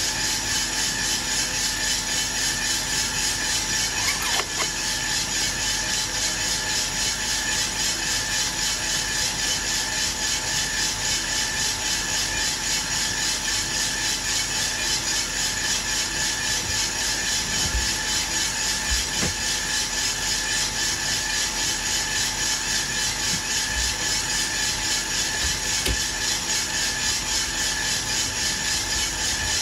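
Aillio Bullet R1 V2 coffee roaster running mid-roast, its fan and rotating drum making a steady whir with a regular swishing pulse of coffee beans tumbling in the drum. One light knock about four seconds in.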